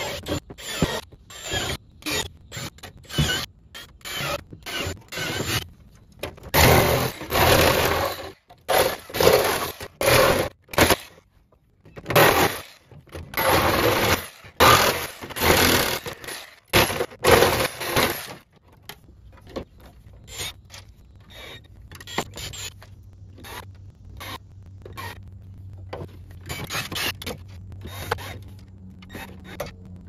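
Power tools working a plastic panel. A cordless drill bores small holes in short stop-start bursts at first. A jigsaw then cuts through the plastic in a run of long, loud bursts through the middle of the clip. Shorter, quieter bursts follow, ending with a drill driving screws.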